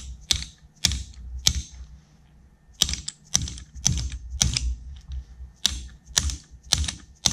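Light metallic taps of a brass-tipped hammer on the wrist pin of a jet ski piston, driving the pin out of the piston. About a dozen sharp taps, roughly two a second, with a short pause about two seconds in.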